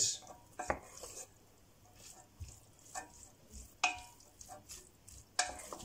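Cooked spaghetti being turned with a wooden spoon in a stainless steel pot: scattered light knocks and scrapes of the spoon against the pot, roughly one every second.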